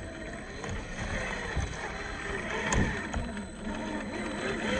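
Traxxas TRX-4 scale RC crawler's electric motor and geared drivetrain whining as the throttle is worked, the pitch rising and falling, with a few sharp knocks from the truck on the terrain.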